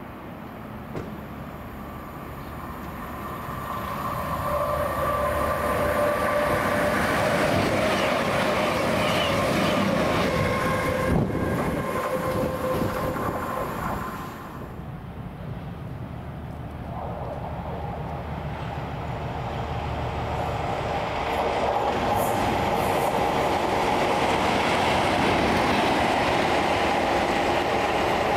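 Trains running through a station. One train's noise builds over a few seconds and holds with a steady whine, then breaks off about halfway through. A second train approaching is then heard, its noise growing louder toward the end.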